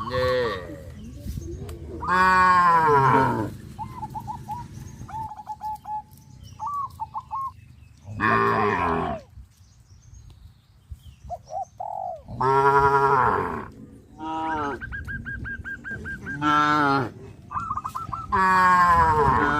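Cattle mooing, about half a dozen long calls that fall in pitch, each roughly a second long, with a few seconds between them. Between the moos, birds chirp in quick runs of short high notes.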